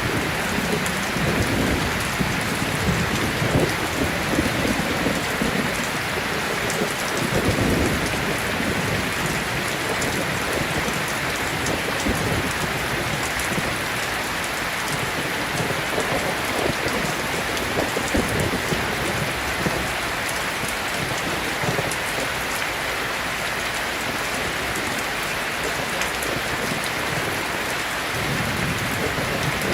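Steady heavy rain, a dense even hiss, with low rumbling swells in the first eight seconds or so.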